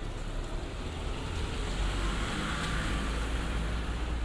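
Isuzu refrigerated box truck driving past close by on a wet road: a low engine rumble with tyre hiss, swelling to its loudest about two to three seconds in.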